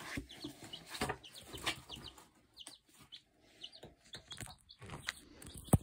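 Baby chicks peeping: a string of short, high, falling peeps. A sharp knock sounds near the end.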